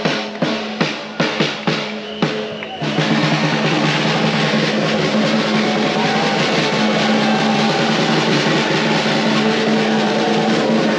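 Drums beating a steady rhythm of about three strikes a second over a steady low tone. About three seconds in, the drumming stops and a dense, steady wash of noise takes over.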